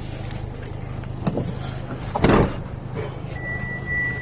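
Vehicle engine idling with a steady low hum. There is a short click just over a second in and a louder thump about two seconds in. A steady high-pitched tone starts near the end.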